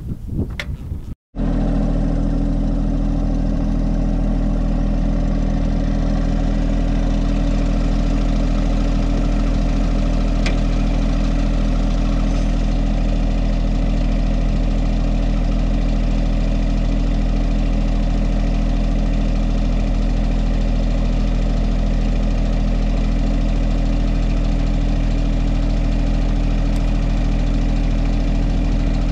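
A John Deere compact tractor's diesel engine idling steadily. It comes in after a brief silent break about a second in.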